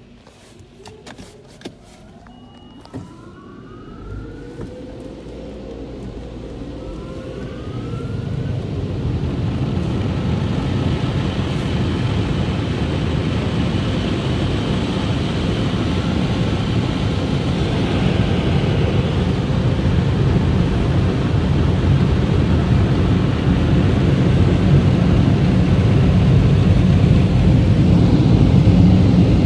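Car wash blower dryers starting up: several motors spin up with rising whines, then a loud, steady rush of air that builds over the first several seconds and holds.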